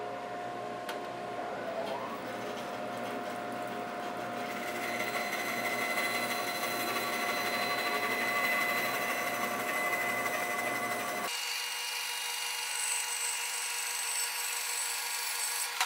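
Bandsaw running and ripping a slab off a bigleaf maple log held on a sled jig. The high cutting noise builds about four seconds in as the blade feeds deeper into the wood. About eleven seconds in the low hum drops out sharply while the high cutting whine goes on.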